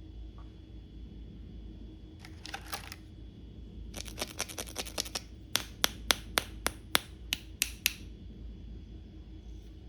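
Plastic toy pieces and packaging being handled during an unboxing. There is a short rustle, then a quick run of small clicks, then about a dozen sharp clicks spaced roughly a third of a second apart.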